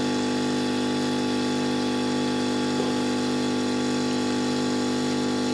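Hot air rework station's air pump running with a steady, even hum made up of several pitched tones.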